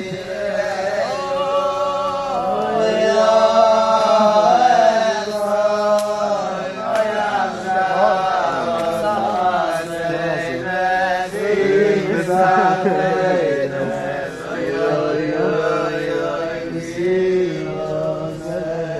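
A group of men singing a slow song together, holding long notes.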